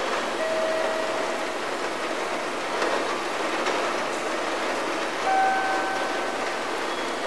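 Steady hiss of a railway station's platform ambience in a recording, with a two-note chime in the background: a lower note about half a second in and a higher note near the end, part of a pattern that repeats every several seconds.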